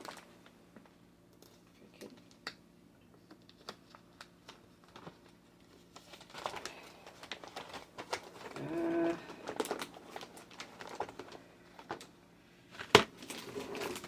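Small scattered clicks and rustling of basket items being handled, busier in the middle, with a short pitched sound about nine seconds in and one sharp knock near the end.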